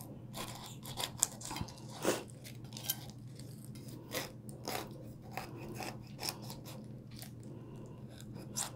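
Long serrated knife sawing lengthwise down through a whole pineapple, tough rind and crown included, in a series of short, uneven strokes.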